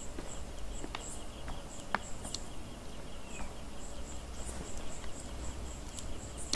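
Crickets chirping in a night-time scene of the music video's soundtrack: a faint, evenly repeating high chirp with a few soft clicks. A loud gunshot breaks in at the very end.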